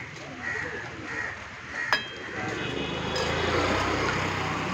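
A motor vehicle passing close by on the street: its engine noise builds from about halfway through and stays loud near the end. A single sharp clink comes about two seconds in.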